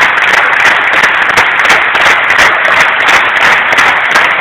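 Large indoor crowd applauding loudly and steadily, a dense mass of hand claps.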